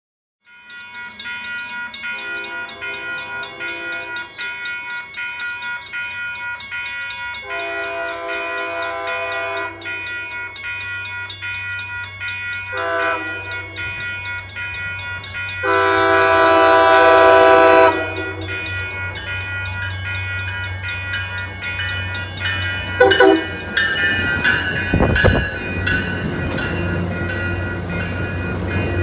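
Commuter train's air horn sounding the grade-crossing pattern of long, long, short, long over a steadily ringing crossing bell; the fourth blast is the loudest, and a brief extra toot follows. In the last few seconds the diesel train rolls in with a rising rumble of engine and wheels.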